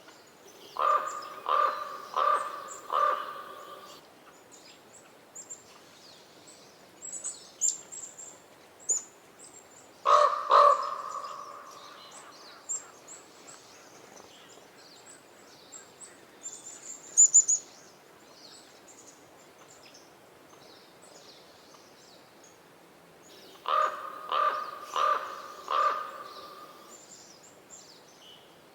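Common raven croaking: a quick run of four calls, then two more about ten seconds in with the second drawn out, then another run of four or five near the end. Faint high chirps come between the runs.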